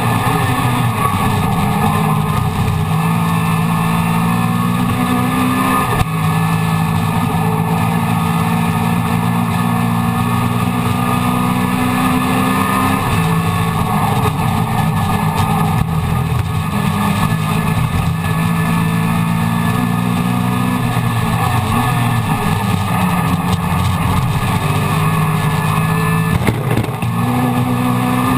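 Mini Miglia race car's A-series four-cylinder engine running hard at high revs, heard from inside the cockpit. Its pitch drops and climbs again several times.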